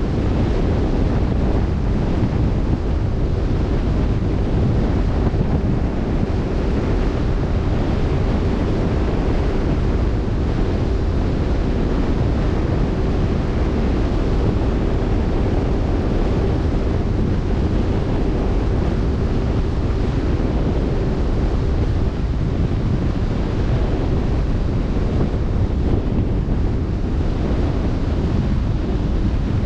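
Wind blowing steadily across the microphone over the rush of open-sea waves, heaviest in the low end. A faint steady hum comes in for a while in the middle.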